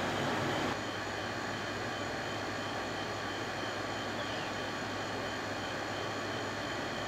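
Steady background machine noise: a low hum under an even hiss. It drops slightly in level about a second in.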